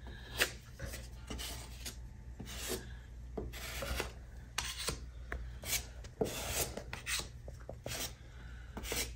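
Putty knife scraping and spreading spackling compound over a filled hole in a concrete wall, in short, irregular strokes.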